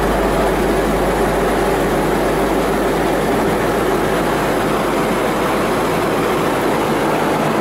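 Diesel locomotive engine running steadily at idle, close by, with a constant low hum.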